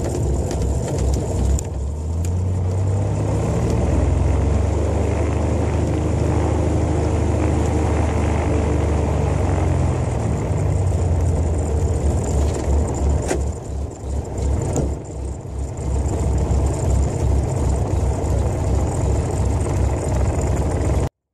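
Cessna 182A's six-cylinder piston engine and propeller running at low power. The pitch rises a few seconds in and holds steady, then falls back about ten seconds in to a lumpy, pulsing idle that runs until the sound cuts off.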